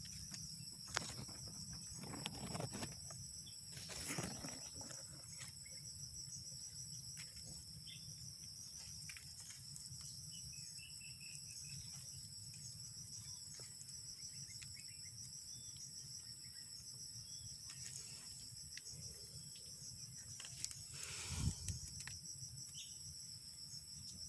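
A steady, high-pitched chorus of insects, several trilling tones layered, one of them pulsing. It is broken by rustling and scraping of dry leaf litter and soil as hands dig for mushrooms, louder in the first few seconds and again about three seconds before the end.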